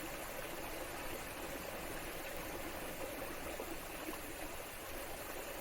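Steady rush of running water from a rainforest stream or small waterfall.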